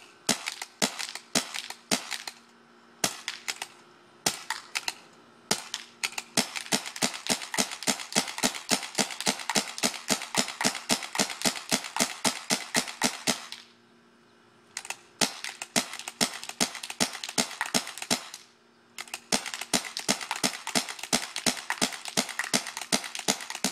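CCM T2 paintball marker firing. Single shots come a second or so apart for the first few seconds, then fast strings of about five shots a second, broken by two short pauses.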